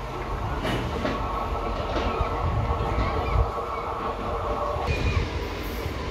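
Electric train running on the line: a low rumble of wheels on track with a few clacks, and a steady high whine that cuts off about five seconds in.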